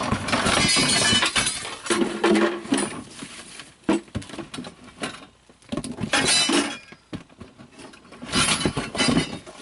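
Packaging and parts being handled: crinkling, crackling and light clinking in several bursts with short pauses between them.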